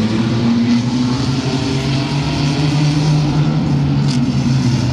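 A pack of mini trucks racing on a short oval, their engines running hard together in a steady, loud drone that shifts a little in pitch as they go through the turn.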